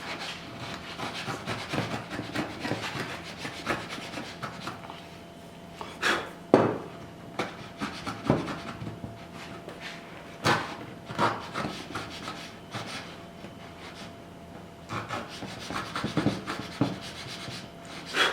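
A hand-held edge tool paring and scraping wood from a lap joint in many short, irregular strokes, with a few sharp knocks of tool on wood.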